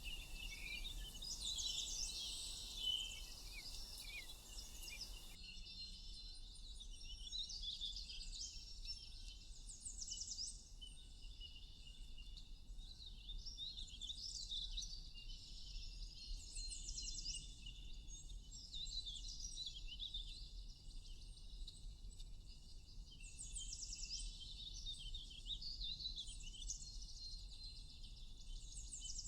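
Many songbirds chirping and trilling, with short, overlapping calls all through, over a steady high tone. The low background hiss drops away about five seconds in.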